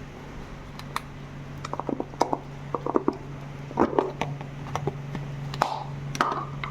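Eating sounds: a string of short clicks, taps and crunchy chewing noises, thickest in the middle, over a steady low hum.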